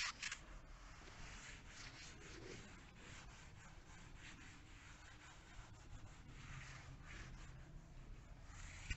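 Faint rubbing of a chalk duster wiping a chalkboard, in short irregular strokes.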